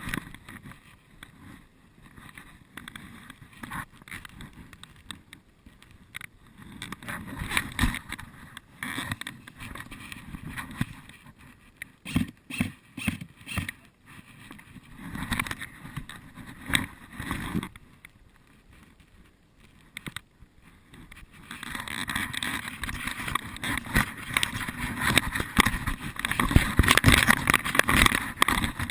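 Irregular rustling and crackling from someone moving through forest undergrowth, with a cluster of sharp clicks about twelve seconds in, getting louder over the last seven seconds.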